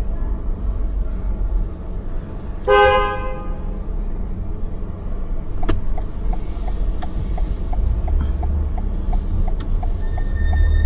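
A car horn gives one short honk, about half a second long, over the steady low rumble of road and engine noise. From about halfway through, a regular ticking sets in, roughly two to three clicks a second.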